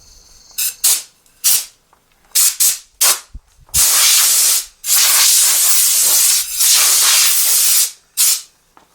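A run of short hissing bursts, then two long, loud, steady hisses of a few seconds each, and one last short burst near the end.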